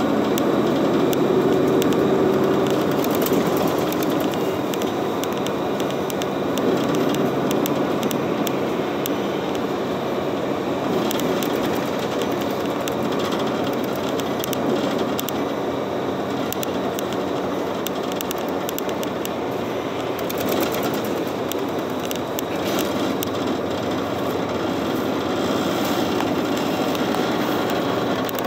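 Steady running noise inside a moving city bus: engine and tyre rumble, with faint clicks and rattles scattered through it.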